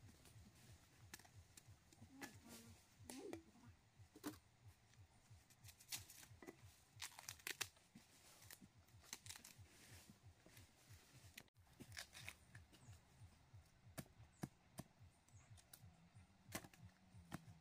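Faint, irregular crackling and tearing sounds: many small sharp snaps scattered unevenly.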